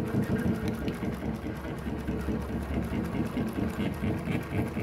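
JUKI LU-1508NS industrial single-needle walking-foot lockstitch machine stitching steadily, needle and feed strokes in a fast even rhythm, as it sews webbing binding onto thick leather.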